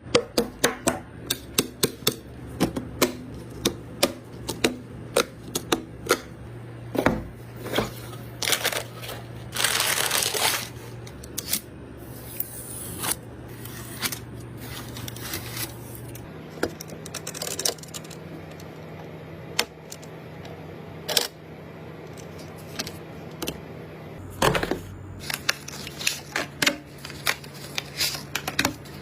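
Irregular run of sharp clicks and taps of hard objects, a few to several a second, with a short rustling rush about ten seconds in and a heavier knock near the end. A steady low hum runs underneath and steps up in pitch about halfway through.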